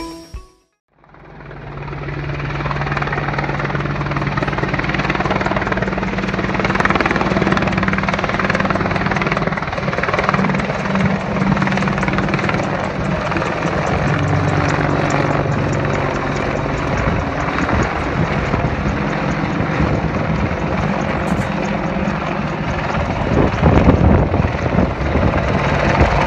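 Boeing AH-64E Apache attack helicopter flying low past, fading in about a second in: rapid, steady beating of the main rotor blades over a steady low hum from its twin turbine engines. It grows louder near the end as the helicopter comes closer.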